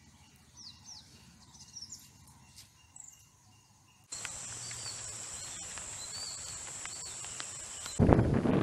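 Birds chirping in short falling and arching calls, with a steady high-pitched insect drone joining about four seconds in. Near the end, wind rumbles loudly on the microphone.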